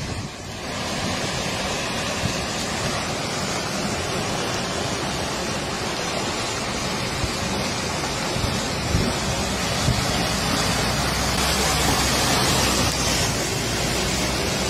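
Steady rushing of muddy floodwater pouring down a flooded street.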